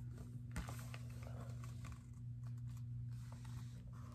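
Faint rustling and soft ticks from a hardcover picture book being held open and moved by hand, with one sharp tap about half a second in. A steady low hum runs underneath.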